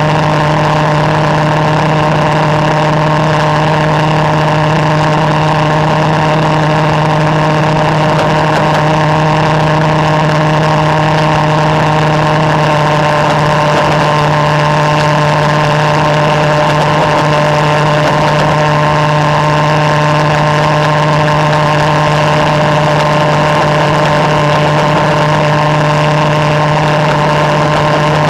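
Reed-valve pulse jet engine running continuously, a loud, steady drone held at one low pitch with strong overtones.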